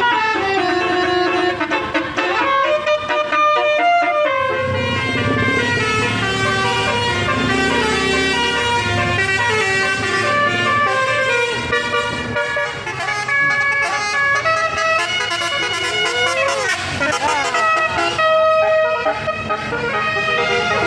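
Bus 'telolet basuri' multi-tone musical horn playing a melody of stepping, chord-like notes, over an engine rumble that comes in about four seconds in. A few short sliding whoops sound near the end.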